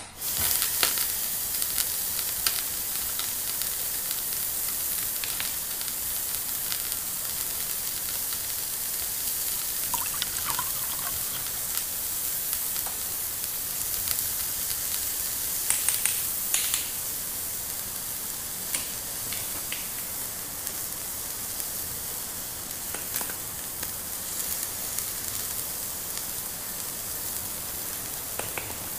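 Steady frying sizzle, a sound effect laid over a toy pot on a toy stove, starting abruptly. A few light clicks and taps of plastic toys being handled sound over it.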